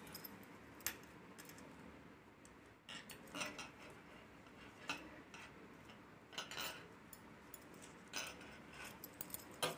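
Cloth rustling as fabric pieces are handled, with scattered light clicks and taps from a zipper with a metal pull being laid along the fabric on a table.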